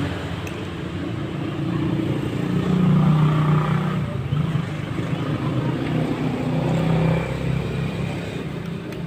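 Maktec MT90 angle grinder's motor running with a low, uneven hum that swells louder about three seconds in and again near seven seconds.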